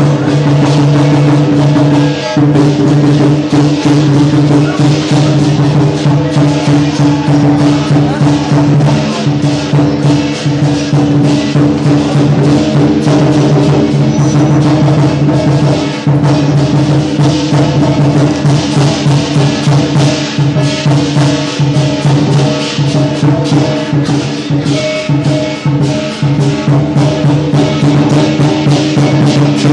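Lion dance drum, cymbals and gong playing a loud, fast, even rhythm of strikes.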